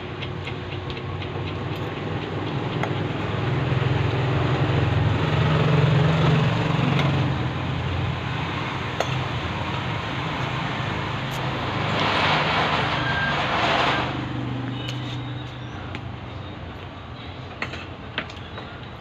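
A motor vehicle's engine running in the street, growing louder to a peak about six seconds in and then fading, with a two-second burst of noise about twelve seconds in. A few sharp clicks come near the end.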